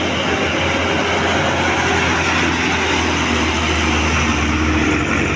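A large bus's diesel engine running loudly close by, with steady road noise; its low hum drops away about five seconds in.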